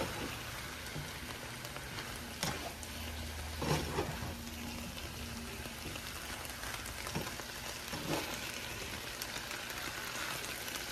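Mixed vegetables sizzling steadily in a frying pan, with a few sharp clicks and scrapes of a slotted spatula against the pan as they are stirred.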